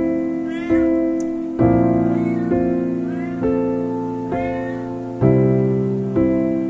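Soft background piano music, a note or chord about every second. Over it, a thin, hungry stray kitten mews about four times, short high calls, begging for food.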